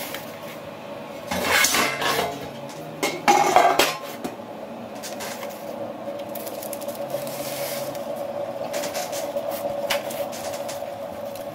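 A metal baking tray clattering and scraping on a stone countertop as it is set down, in two loud bursts within the first four seconds. Lighter rustling and taps follow as dough on parchment is slid onto the tray.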